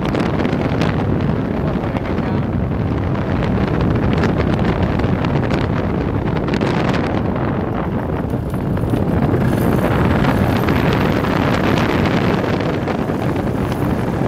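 Wind buffeting the microphone of a paramotor in flight, over the steady drone of the paramotor's engine. The wind noise swells and eases but never stops.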